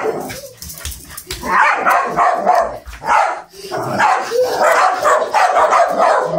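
Italian greyhounds barking in rough play, in repeated bursts that start about a second and a half in and come thick and fast over the last few seconds.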